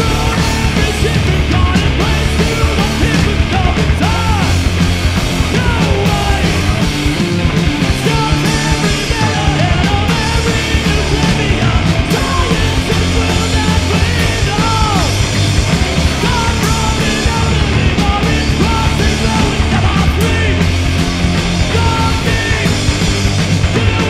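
A rock band playing punk rock live, with bass guitar, drums and guitar under a shouted vocal.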